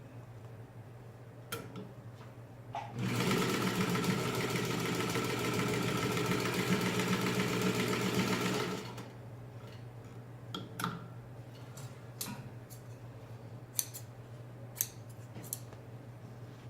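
Refurbished Singer 15-90 sewing machine stitching steadily through a thick, many-layered denim seam for about six seconds, starting about three seconds in. Scattered sharp clicks and knocks come before and after the stitching.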